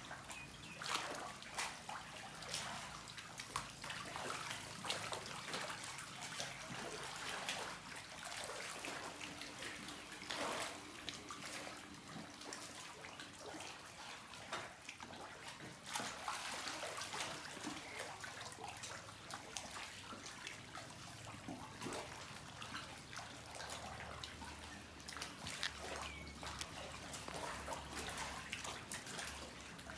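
Water splashing and sloshing in a crowded crocodile pool, with many small irregular splashes as the crocodiles swim and jostle.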